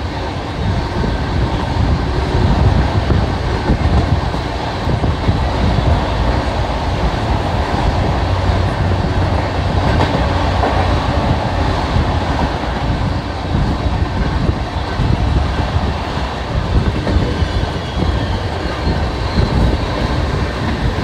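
Durgiana Express passenger train running at speed, heard from aboard a coach: a steady, loud rumble and rattle of wheels on the track.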